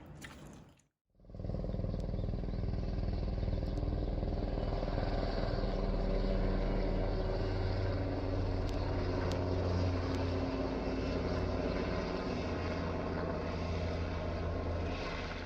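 Steady mechanical running noise, a low drone under an even hiss, starting about a second in and cutting off abruptly at the end.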